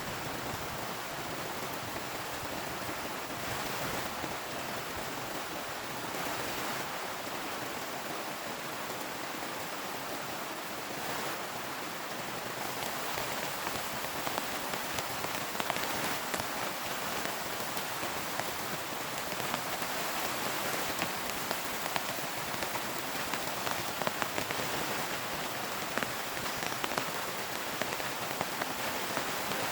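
Heavy rain falling steadily, with individual drops ticking more sharply on a surface from about halfway through.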